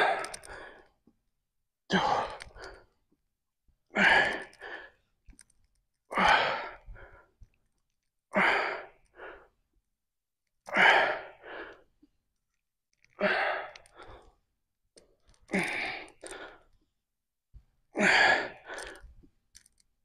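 A man breathing hard with effort, one heavy breath per sumo squat rep: a loud, forceful exhale followed by a shorter breath, about every two seconds, around nine times.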